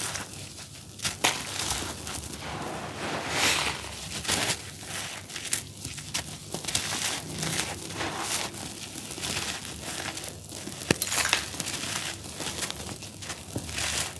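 Dry, grainy charcoal cakes crumbling in bare hands: a gritty rustle of powder and crumbs sifting through the fingers, broken by irregular crunches and small cracks as lumps break apart, with one sharp crack about three-quarters of the way through.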